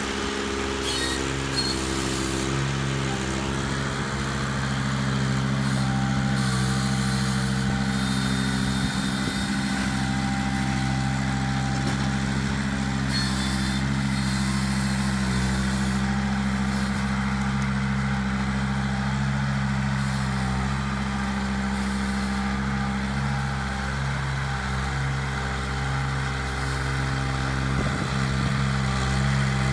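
Ventrac 4500Z compact tractor's diesel engine running at a steady speed while the tractor drives and carries a log in its grapple, a constant low drone.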